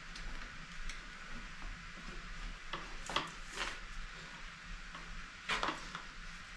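A large battery pack being lowered into a tight-fitting electric dirt bike frame: light scraping and rubbing of the pack against the frame, with a few short knocks, the loudest about five and a half seconds in.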